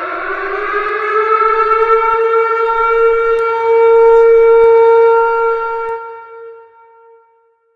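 Civil defense air-raid siren finishing a rising wind-up, then holding a steady wail for a few seconds before fading away about six to seven seconds in, the attack warning of a nuclear countdown.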